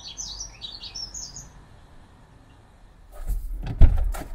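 Small birds chirping for the first second and a half. About three seconds in, a run of loud knocks and clunks, the loudest just before four seconds.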